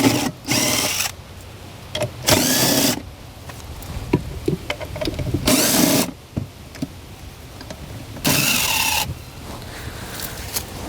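Cordless power drill or driver run in four short bursts, each rising and falling in pitch, spaced about two to three seconds apart: fasteners being backed out.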